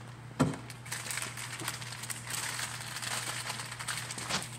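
A single sharp knock about half a second in, then light clicking and rustling of plastic toy food and play-kitchen parts being handled, over a steady low hum.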